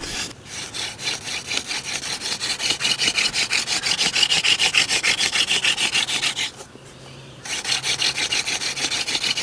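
Hands spinning a yucca hand-drill spindle in a yucca hearth board, with a fast, even rasping rhythm of wood rubbing on wood. It breaks off for about a second near two-thirds of the way through, then starts again. This is the slow opening stage of the drill, which builds up wood dust in the notch.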